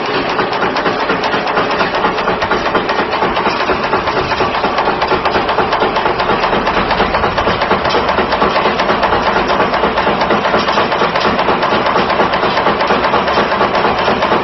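Wire nail making machine running at speed, cutting and heading nails from wire with a fast, steady mechanical clatter.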